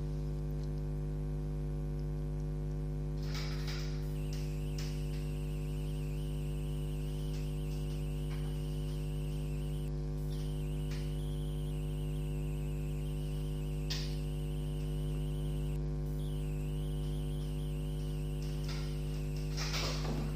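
Steady electrical mains hum with a stack of overtones, with a faint wavering high whine over it and a few faint brief rustles.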